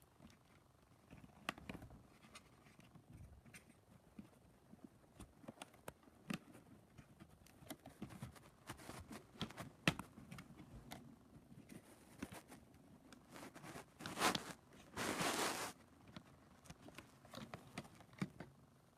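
Hands working a plastic laptop part into place: scattered small clicks, taps and scrapes of plastic, with two louder scrapes about fourteen and fifteen seconds in.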